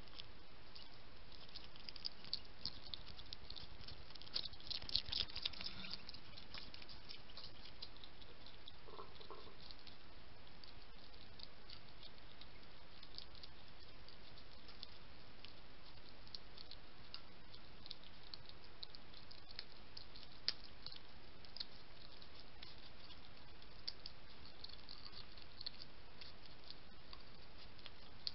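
A European hedgehog eating dry food pellets from a dish: irregular small crunching clicks over a steady hiss, with a denser, louder run of clicks about four to six seconds in.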